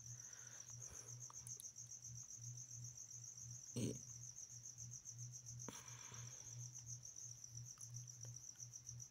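Faint workshop background: a steady, high-pitched pulsing chirr over a low pulsing hum, with a sharp knock about four seconds in and a softer clatter near six seconds.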